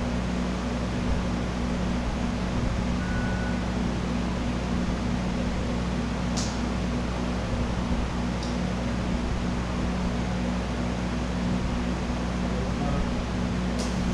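Steady machine hum, like a running shop fan, with three short light clicks from hand work on the buggy about six, eight and fourteen seconds in.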